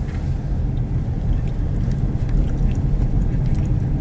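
Steady low rumble of engine and road noise inside a car being driven slowly.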